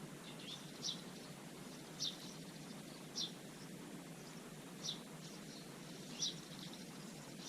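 A small songbird chirping: short, sharp calls repeated about every one to one and a half seconds, with fainter chirps between, over a steady low background noise.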